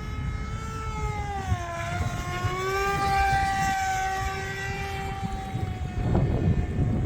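Electric motor and propeller of an E-flite ICON A5 RC seaplane whining in flight. The pitch dips about two seconds in and then holds steady, over a low wind rumble on the microphone.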